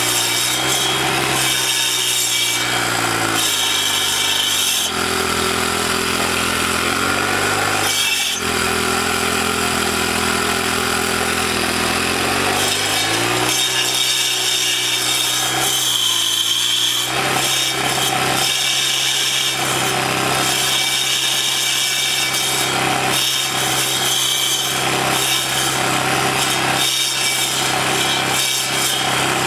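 Troy-Bilt four-stroke sidewalk edger running under load, its two carbide-tipped circular saw blades grinding into a tree stump. The engine note sags and climbs again several times as the blades bite and free up.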